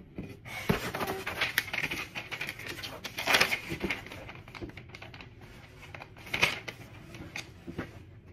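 Paper rustling and crinkling as a printed instruction sheet is picked up and handled, with scattered light clicks and taps; the loudest crinkles come about three seconds in and again past six seconds.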